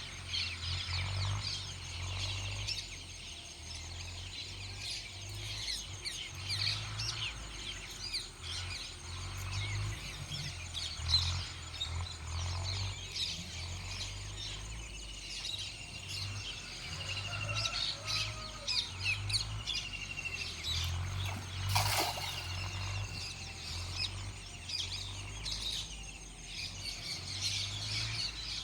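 Small birds chirping and calling over and over, with a steady low hum underneath and one sharp click about three quarters of the way through.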